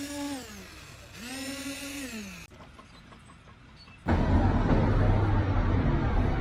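Electric power tool motor running steadily, winding down, spinning up again and winding down once more. About four seconds in, a loud low rumbling noise starts suddenly and carries on.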